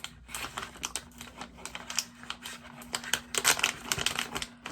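Plastic candy packet crinkling and rustling as it is handled and opened, in quick irregular crackles that grow louder past the middle.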